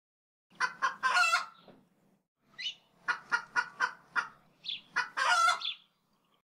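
A chicken clucking and cackling: two rounds of quick short clucks, each ending in a longer, louder squawk, the first about a second in and the second about five seconds in.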